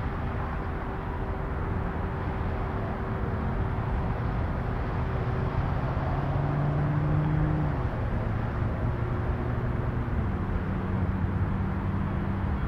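Steady running noise of a moving vehicle, with a low hum that changes pitch a few times.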